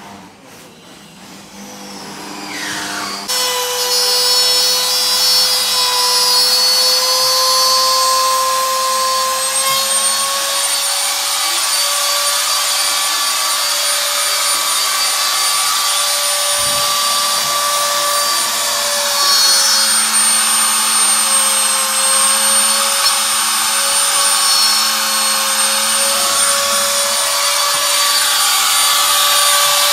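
Corded electric drill drilling. Its motor whine rises as it spins up over the first few seconds, then runs steadily, its pitch wavering slightly under load.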